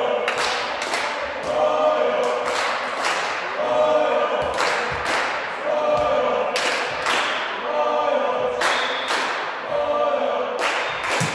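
A group of voices chanting a repeated cheer in a steady rhythm, with sharp claps in time about once a second.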